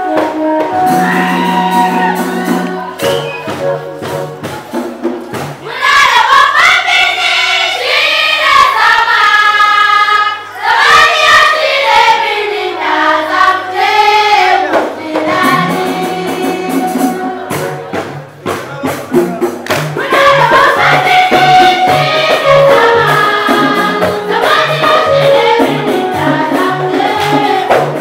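Church choir singing a gospel song in unison over an instrumental backing with a bass line and percussion. The voices come in about six seconds in, drop out briefly past the middle, and return with a steady pulsing beat under them.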